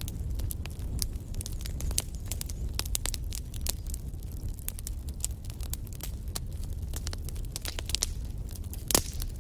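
Wood fire burning in a fireplace, crackling with frequent sharp pops over a low steady rumble of the flames; one louder pop near the end.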